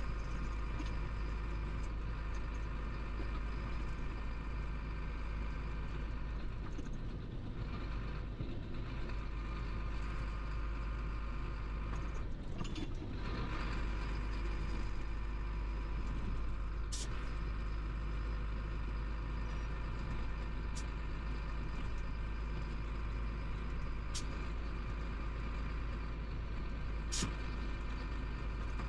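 Chenglong 375 heavy truck's diesel engine running steadily while driving, heard inside the cab, with a low rumble and several steady tones. The rumble thins briefly twice, and a few sharp clicks come in the second half.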